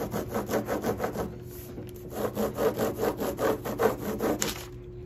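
Peeled wax crayon rubbed on its side in quick back-and-forth strokes across paper laid over a plastic texture plate, scratching over the raised texture as it makes a crayon rubbing. There is a brief pause about a second and a half in, and the strokes stop near the end.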